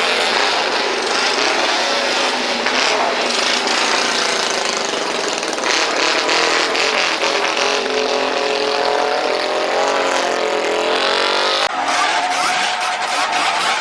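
Several racing motorcycle engines revving hard, their engine notes rising and falling over one another. The sound changes abruptly about twelve seconds in.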